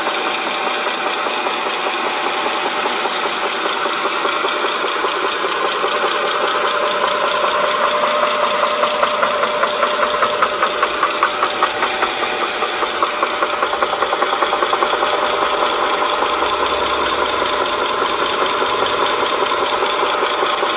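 2007 Dodge Charger 2.7-litre V6 running with a steady knocking rattle and a high whine over it. The owner puts it down to a broken timing chain guide or tensioner letting the chain slap.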